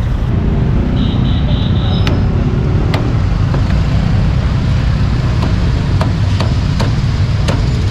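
Steady street-traffic rumble, with a cleaver chopping roast pork on a block in about six sharp, irregular knocks. A short high tone sounds about a second in.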